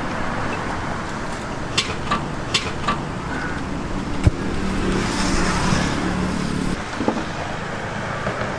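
Road traffic noise: motor vehicles running along the street, with an engine sound strongest in the middle. A few sharp clicks stand out, the loudest about four seconds in.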